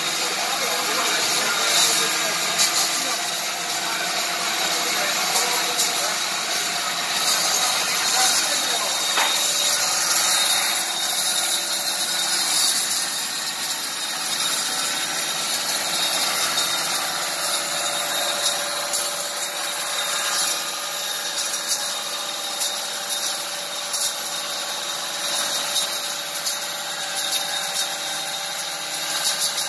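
Electric sawmill running and sawing through timber: a steady, even machine noise with no pauses.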